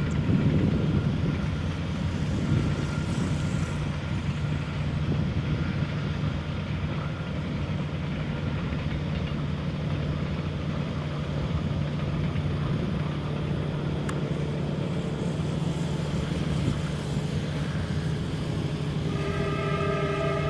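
Passenger train running with a steady low rumble. About a second and a half before the end, the train's multi-tone horn starts sounding.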